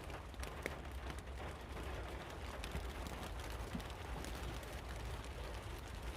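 Light rain pattering on the metal shell of a burnt-out car, heard from inside: scattered, irregular drop ticks over a steady low hiss.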